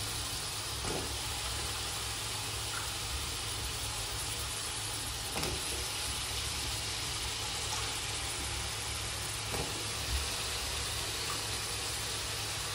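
Chopped bottle gourd sizzling steadily in a hot kadhai with a tomato and garlic-chilli masala, with a few faint taps over a low steady hum.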